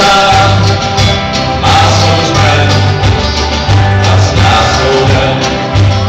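Live rock band playing a song: sung vocals over bass guitar, drums and guitars, with the bass notes standing out and changing every second or so.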